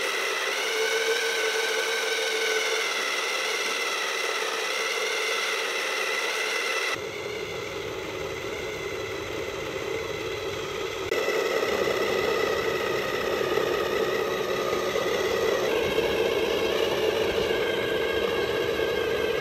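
Small electric drive motor and plastic gears of a 1:12-scale toy RC Porsche Cayenne whining steadily as its wheels spin in place, the car held by a tether for a burnout. The whine wavers a little in pitch at first, and its sound shifts abruptly a few times.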